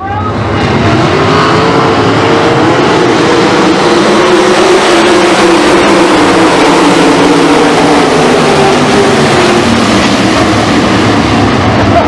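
A full field of 410 sprint cars, their methanol-burning 410-cubic-inch V8s, racing past at once in a loud, continuous wall of engine noise whose pitch sags slightly as the pack goes by.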